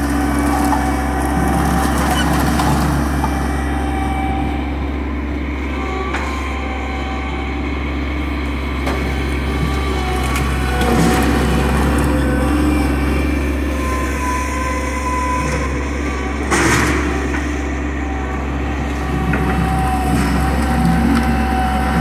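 Bobcat skid-steer loader's engine running steadily while its grapple bucket scoops and dumps split firewood, with the wood clattering and knocking. A sharp knock comes about three-quarters of the way through.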